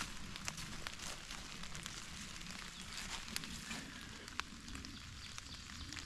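Rain pattering: a steady hiss with many scattered, irregular sharp drop ticks.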